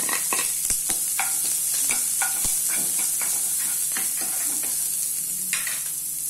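Chopped onion sizzling in hot oil in a nonstick pan with mustard seeds and dried red chilies, a tempering for sundal, while a spoon scrapes and stirs through it in quick, repeated strokes.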